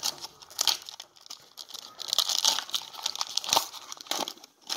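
Foil wrapper of a 1995 Upper Deck SP Motorsports card pack being torn open and crinkled by hand, a run of irregular crackles, the loudest about three and a half seconds in.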